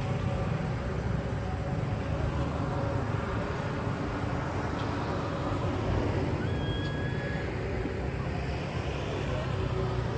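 Steady outdoor background rumble, heaviest in the low end, with a short high-pitched tone about six and a half seconds in.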